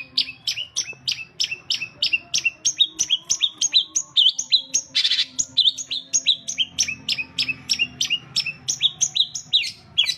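Long-tailed shrike (cendet) calling in a fast, even string of short, high, downward-sliding notes, about five a second, with one harsh rasping note about five seconds in.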